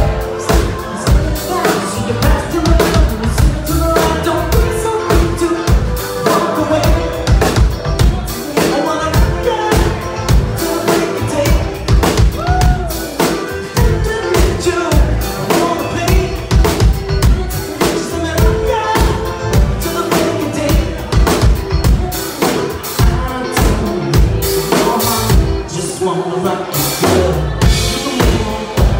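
Live band playing with a drum kit keeping a steady beat, electric bass and keyboard, and a woman singing lead into a handheld microphone over it.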